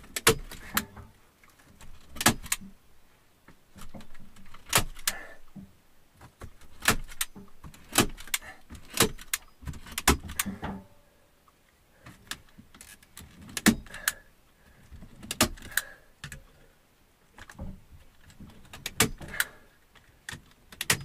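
Hand staple gun snapping as birch bark is stapled to a log cabin ceiling: sharp clicks, often two or three in quick succession, repeating every second or two, with rustling between.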